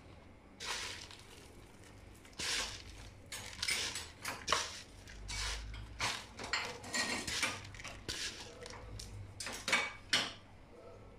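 Crushed dry instant noodles rustling and crackling in a plastic bowl as a hand presses and turns a battered potato finger through them, in a run of irregular scrapes.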